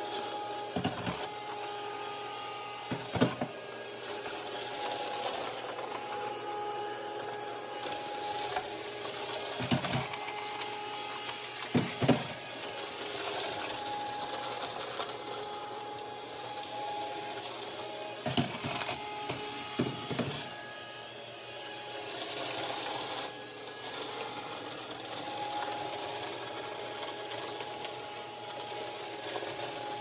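Roborock S5 robot vacuum running on carpet: the steady, slightly tonal whine of its suction fan and brush motors, with about six sharp clicks and rattles scattered through, as it picks up scattered cereal.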